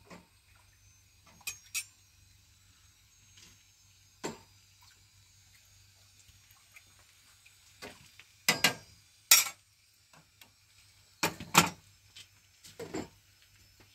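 Scattered, irregular knocks and clinks of hard objects being handled, a few at a time and loudest in the second half.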